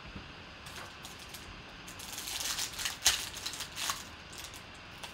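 Foil wrapper of a trading-card pack crinkling and tearing as it is ripped open by hand. The crackling comes in a cluster from about two seconds in, with the sharpest rip about three seconds in.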